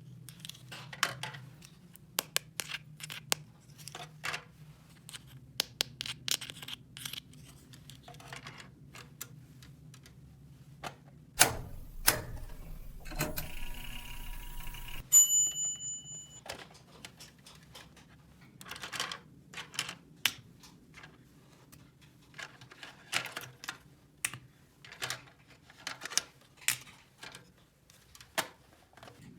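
Light clicks and taps of small plastic toy-kitchen pieces being handled, at an uneven pace. In the middle there is a louder noisy stretch of a few seconds, ending in a short steady high tone.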